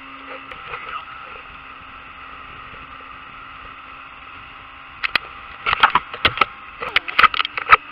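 Motorboat running at speed: a steady engine hum under a rush of wind and water. From about five seconds in, a run of loud sharp knocks and slaps.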